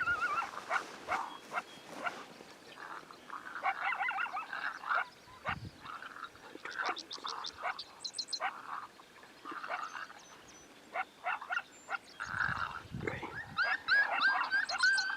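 Coyote vocalizations: strings of short, high-pitched yips and barks, coming in bursts with pauses between them and growing faster and more continuous near the end.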